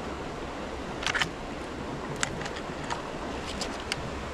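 Steady rushing of a flowing creek, with a handful of short, sharp clicks scattered through it.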